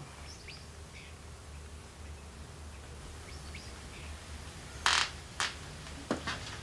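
Quiet room tone with a steady low hum and faint, scattered bird chirps. About five seconds in comes a short hissing noise, with a softer one just after.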